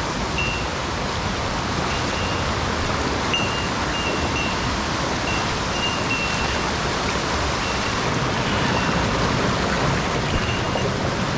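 Mountain stream water rushing steadily, with short high chirps repeating on and off over it.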